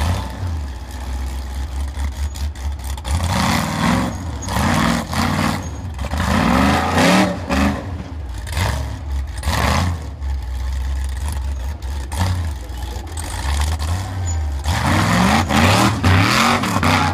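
Rock-crawling buggy's engine revving hard under load in repeated short bursts, each rev rising and falling about once a second, over a steady low rumble. The revs ease off for a few seconds after the middle and come back hard near the end.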